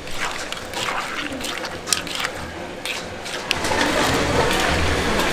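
Kitchen work at a food stall: utensils and containers clinking and knocking in sharp, scattered clicks, then a louder spell of splashing liquid from about three and a half seconds in.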